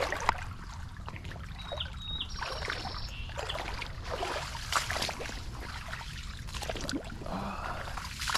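Water splashing and sloshing in irregular strokes, over a steady low rumble.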